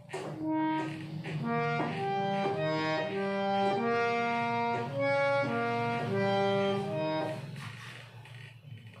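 Harmonium playing a simple melody, one sustained reedy note after another, over a low steady tone. The tune tails off and fades near the end.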